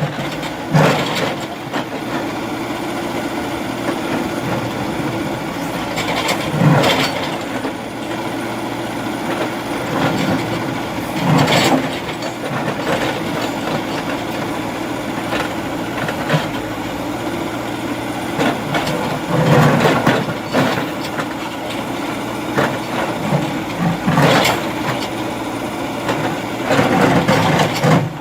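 Backhoe loader's diesel engine running steadily, with a louder surge every few seconds as the machine works.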